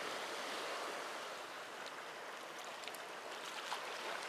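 Small sea waves washing against breakwater rocks: a steady soft hiss, with a few faint ticks.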